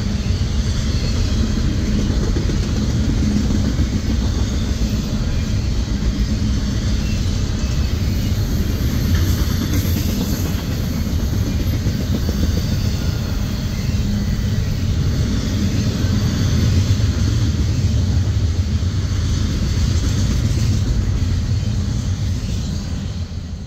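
Double-stack intermodal container train's well cars rolling past: a steady rumble of steel wheels on rail, fading out at the very end.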